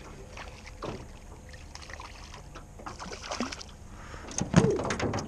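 A hooked crappie splashing and thrashing at the surface beside a jon boat as it is reeled in, with light clicks and knocks, and a louder thump and splash about four and a half seconds in.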